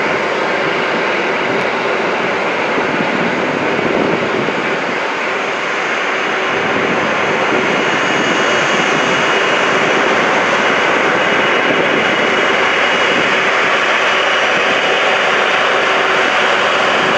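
Airbus A330-200 twin jet engines, Rolls-Royce Trent 700 turbofans, running at taxi power: a steady rush of engine noise with a faint high whine, growing slightly louder about six seconds in.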